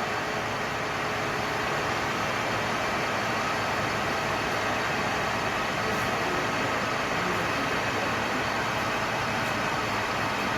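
Gas welding torch flame burning with a steady, even hiss.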